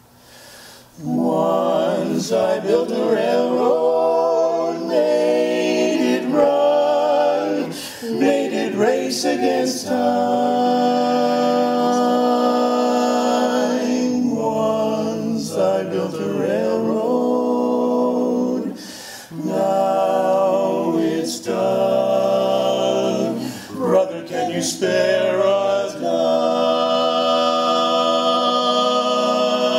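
Vocal quartet singing a cappella in close harmony, coming in about a second in with full held chords and breaking off briefly about two-thirds of the way through.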